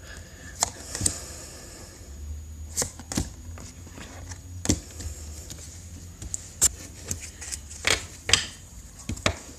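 Playing cards being handled and flipped, giving irregular sharp clicks and taps over a low steady hum.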